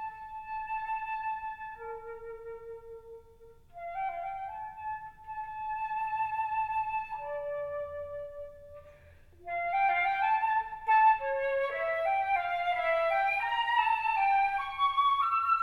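Solo flute playing a slow melody of long held notes, with short pauses between phrases. From about ten seconds in it moves into a quicker run of notes climbing in pitch.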